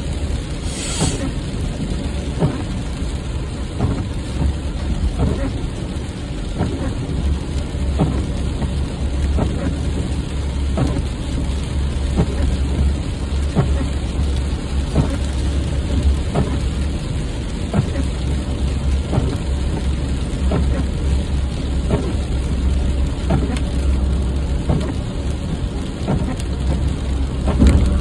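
Rain hitting a moving car's windshield, heard inside the cabin as irregular drop ticks over a steady low road rumble. A short hiss about a second in.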